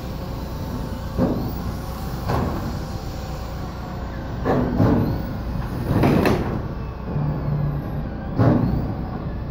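Sheet-metal roof panels banging and rattling several times as they are handled and walked on, each bang ringing briefly, over a steady engine hum.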